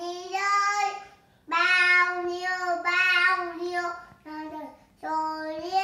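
A toddler boy singing, holding long steady notes across a few phrases with short pauses between.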